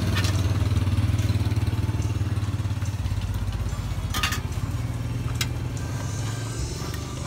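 Small engine idling steadily, a pulsing low hum that shifts slightly about three seconds in. A couple of sharp clicks come around four and five seconds in.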